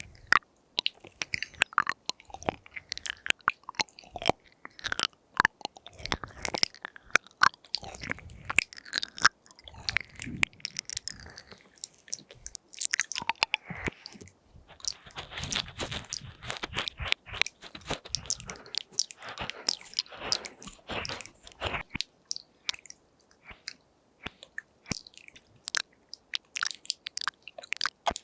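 ASMR mouth sounds made close to the microphone: a quick, irregular string of wet clicks, lip smacks and tongue sounds, busier about halfway through.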